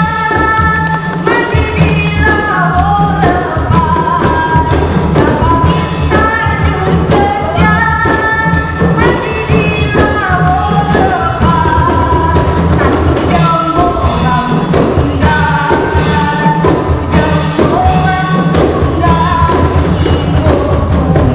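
Hand frame drums (rebana) and a tambourine beaten in a steady rhythm under a group singing a melody.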